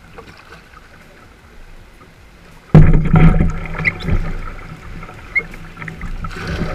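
Water rushing and splashing around a kayak on the river, coming in suddenly about three seconds in after a quiet start, with a couple of sharp knocks.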